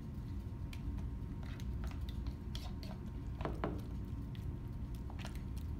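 Egg-and-herb mixture being stirred in a mixing bowl: wet squishing with scattered light taps and scrapes of the utensil against the bowl, and one short falling squeak about three and a half seconds in.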